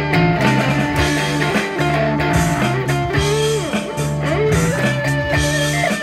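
A band playing an instrumental passage: electric guitar with notes bending up and down in pitch over steady bass notes and drums.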